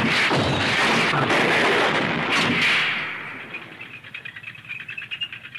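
Animated sound effect of a tank bursting up through ice: a sudden, loud crashing rumble for about three seconds, fading into the rapid clatter of its tracks.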